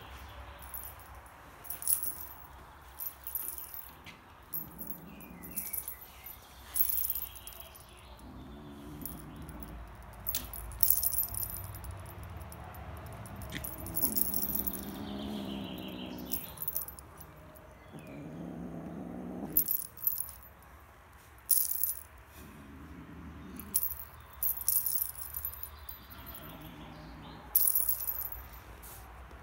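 Small metal jingle bell on a cat wand toy jingling in short, irregular bursts as kittens bat at and bite the lure, with several short, low, voice-like sounds in between.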